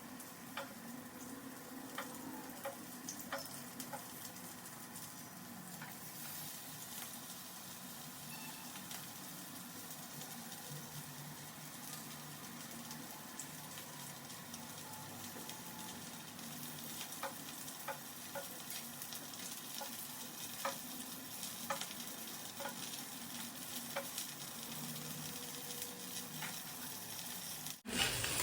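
Rava-coated Indian mackerel (bangda) shallow-frying in a little oil on a tawa: a steady sizzle with scattered small crackles.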